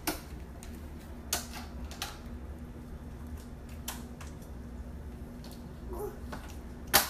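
Fridge magnets clicking against a refrigerator door as they are moved around: several sharp, irregularly spaced clicks, the loudest near the end, over a steady low hum.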